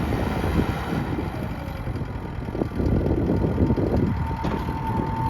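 Takeuchi TL12 compact track loader's Kubota diesel engine idling, with wind buffeting the microphone. A steady high tone joins the engine sound about four seconds in.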